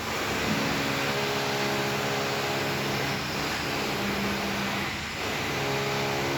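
A motor running steadily with a hum over a loud hiss, dipping briefly about five seconds in and then running again.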